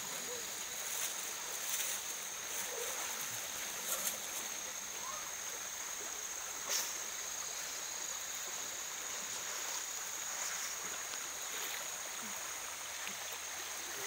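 Tropical jungle stream ambience: the steady hiss of a small river flowing, with a continuous high-pitched tone above it and a few brief knocks or splashes.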